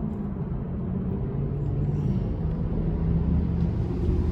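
Steady low background rumble with a faint droning hum.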